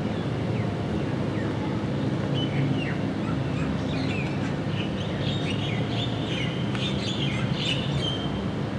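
Birds chirping: many short, quick calls start about two seconds in and grow busier toward the end, over a steady low rumble.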